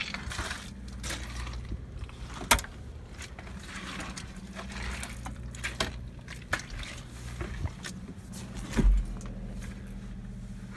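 Footsteps, clanks and knocks of someone walking around and climbing onto a Caterpillar grader and into its cab, with a sharp click about two and a half seconds in and a heavy thud near the end. A steady low hum runs underneath.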